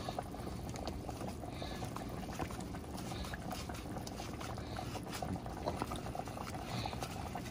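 Saucepan of sauce at a rolling boil: steady bubbling with many small pops.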